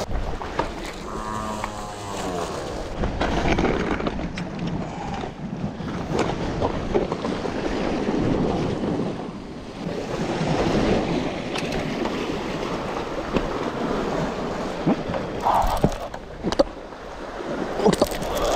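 Sea surf surging and washing over a rocky shore in slow swells, with a few sharp knocks near the end.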